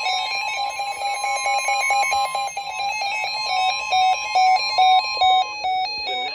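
Electronic alert tones: a fast warbling alternation of beeping pitches over a steady tone. The steady tone cuts off about five and a half seconds in, and the beeps then step through changing pitches.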